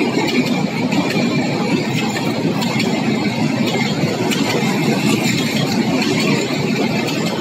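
Bangladesh Railway intercity passenger coaches rolling past close by: a steady rumble of wheels on the rails with scattered faint clicks.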